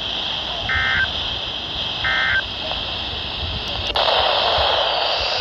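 NOAA Weather Radio SAME end-of-message data bursts: short, buzzy digital tone bursts about a second apart, the last two of the three that close an alert, over steady radio hiss. About four seconds in, the hiss grows louder.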